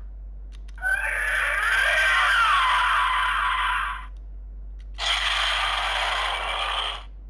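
Bandai DX Guts Sparklence transformation toy playing tinny electronic sound effects through its small speaker, in two bursts: a longer one about a second in with gliding, wavering tones, then a shorter one about five seconds in.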